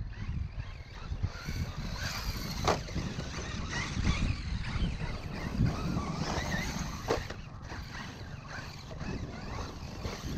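Traxxas E-Revo 2.0 RC truck driving, its brushless electric motor whining up and down in pitch over a steady low rumble. Two sharp knocks come about two and a half seconds in and again about seven seconds in.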